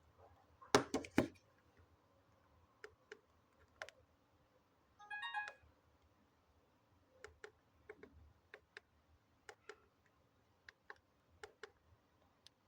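Keypad buttons of a Samsung SM-B310E feature phone clicking under repeated presses, a quick run of clicks about a second in and then single presses every second or so. About five seconds in the phone gives a brief run of electronic beep tones lasting about half a second.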